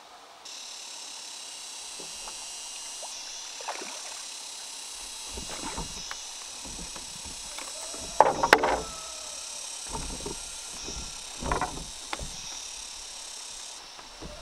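Water sloshing and splashing against a bamboo raft on a pond as a person shifts her weight on it, in several separate bursts, the loudest a little past the middle. A steady high hiss runs behind.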